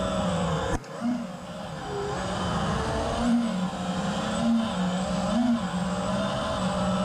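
Four brushless motors and props of a 5-inch FPV racing quad (ImpulseRC Apex on 2306 2555KV motors) whining in flight, the pitch rising and falling with throttle. The sound drops away sharply for a moment about a second in.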